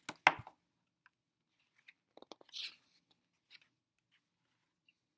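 Paper pages of a picture book being turned, a sharp crackling flap in the first half-second, then faint ticks and a short soft rustle about two and a half seconds in.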